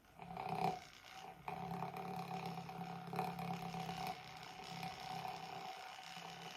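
Small handheld electric whisk whipping heavy cream, its motor running with a steady hum that falters briefly about a second in and runs a little quieter in the second half; the user thinks it is dying on her.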